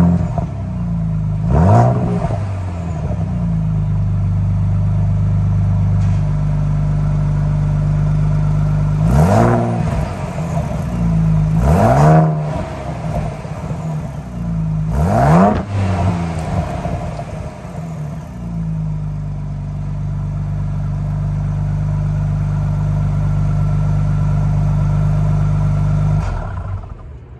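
Ford Bronco Raptor's twin-turbo V6 exhaust idling, with about five short throttle blips that rise and fall back to idle. The last blip comes about a quarter of the way in, then it idles steadily until the sound cuts off abruptly near the end.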